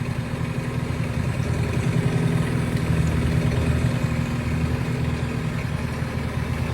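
Classic outboard motor idling steadily with a quick even beat after a full tune-up and carburettor rebuild; it runs smoothly, rising a little in level for a couple of seconds partway through.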